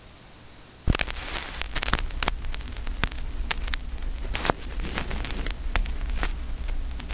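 Crackling static: a steady hiss over a low hum, scattered with irregular pops and clicks, growing louder about a second in.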